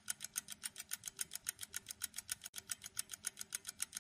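Quiz countdown timer sound effect: rapid, even clock ticking at about five ticks a second, alternating louder and softer ticks.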